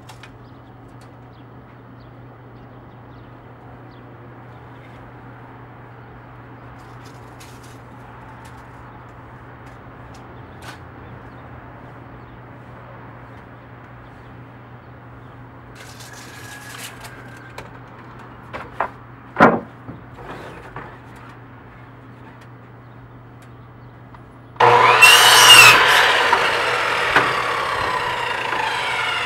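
Miter saw starts suddenly near the end and cuts through a wooden deck baluster, loud and steady. Before that there is only a low steady hum and a few knocks and clicks of wood being handled at the saw, the loudest a single sharp knock about two-thirds of the way through.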